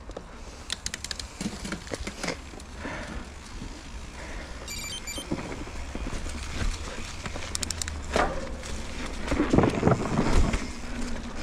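Mountain bike ridden along a leaf-covered dirt trail: tyres running over dirt, leaves and roots, with the bike clicking and rattling over bumps over a low wind rumble on the microphone. It grows louder and rougher near the end.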